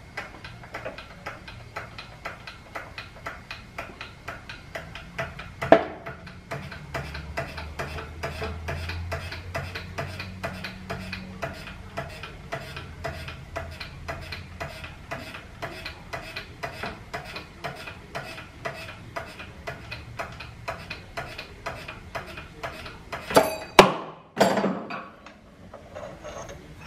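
Hydraulic shop press pressing the old brass bushing out of a connecting rod's small end with a mandrel: an even rapid ticking of about three clicks a second, a low hum partway through and one sharp crack early on. Near the end come a few loud metal clanks as the mandrel and rod are lifted off the press bed.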